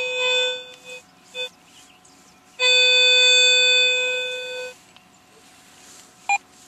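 Garrett AT Pro metal detector's audio tone as the coil sweeps over a target: a steady tone for about a second, a short blip, then a longer tone of about two seconds. It is an iffy signal, one whose target ID readings jump all over the place.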